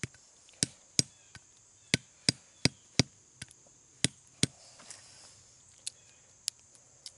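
The back of a tomahawk head tapping a roasted hickory nut against a stone to split its tough husk: about eight sharp knocks, mostly in quick pairs, through the first half, then a few fainter clicks.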